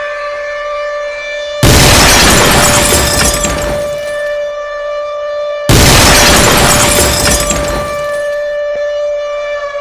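Emergency alert alarm: a steady siren-like tone with several overtones, broken twice by a sudden loud crash about four seconds apart, each crash fading over two to three seconds.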